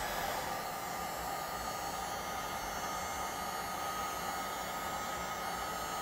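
SEEKONE 1800W heat gun running on its low setting, blowing a steady rush of hot air with a faint steady whine, shrinking heat-shrink tubing onto a crimped ring terminal.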